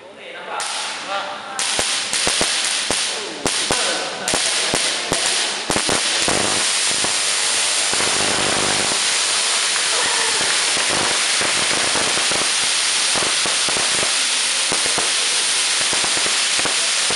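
High-voltage electric arc flashing over the surface of a salt-water-sprayed model insulator. It goes as sharp, irregular crackling snaps for the first few seconds, then settles into a continuous crackling hiss of a sustained arc.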